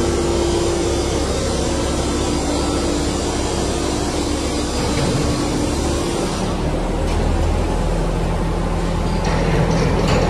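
Factory machinery running: a steady mechanical din with a constant low hum and a few steady tones, its high hiss thinning out about two-thirds of the way through.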